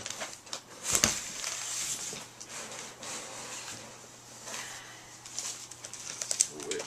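Cardboard packaging being handled and scraped as an electronics box is unpacked, with a sharp knock about a second in and a few quick clicks near the end.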